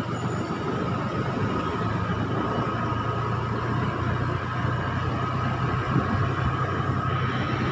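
Motorcycle engine running steadily while riding, with a steady low hum and road and wind noise.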